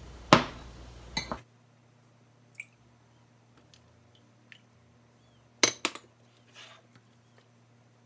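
A metal ladle clinking against a pot and a small glass cup as a liquid pudding mixture is ladled into the cup. There is a sharp clink just after the start, another about a second in, and a quick cluster of two or three clinks about two-thirds of the way through, with a few faint taps in between.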